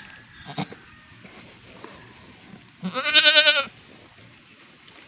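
Goat bleating once, a single long wavering call about three seconds in.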